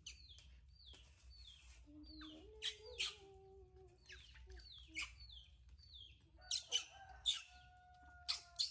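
Small bird chirping over and over in short falling notes, with sharp splashes and drips of water as a wet baby monkey is rinsed by hand over a steel bowl.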